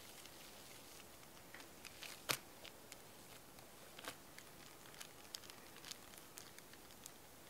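Faint scattered clicks and crackles of thick sponge-cake batter being poured into a parchment-lined tin and worked with a silicone spatula, with one sharper click about two seconds in.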